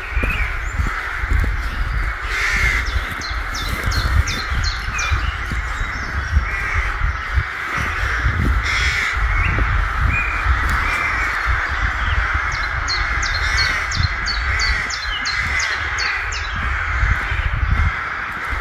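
A nesting colony of crows in the treetops, many birds cawing at once in a continuous, overlapping din. Twice a smaller bird's rapid run of high notes sounds over it, with a low rumble underneath.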